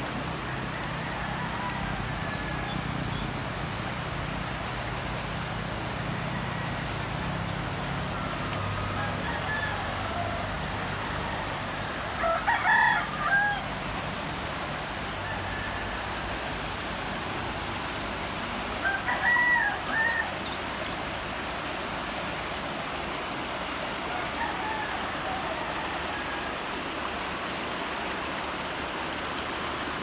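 A rooster crows twice, several seconds apart, each a long call of a second or two. Beneath it a shallow, rocky river rushes steadily over its rapids.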